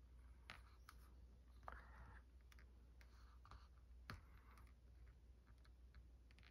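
Faint clicks and scrapes of a thin metal spatula working under the arm of a comic book's staple against the old paper, with a brief scratchy rub about two seconds in.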